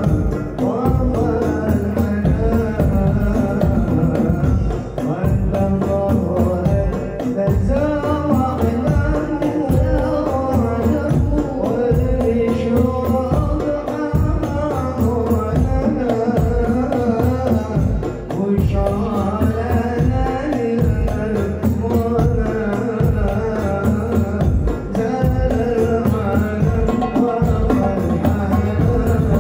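Hadrah ensemble playing sholawat: rebana frame drums and a deep bass drum beat a steady rhythm while voices sing Arabic devotional verses over them.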